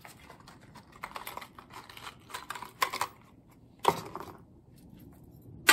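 Light, irregular clicking and clinking as a metal wind spinner and its hook hardware are handled, with a sharper click about four seconds in and another right at the end.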